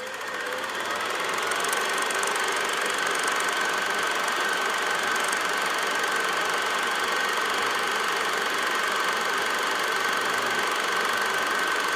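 Film projector running: a steady mechanical clatter with a constant high whine, fading in over the first second or so.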